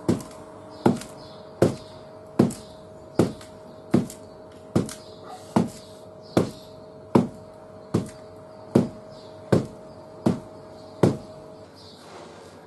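Fists punching down into a plastic bucket of sand, a dull thud about every 0.8 seconds, some fifteen blows in a steady rhythm. The blows stop shortly before the end, when the hands turn to grabbing the sand.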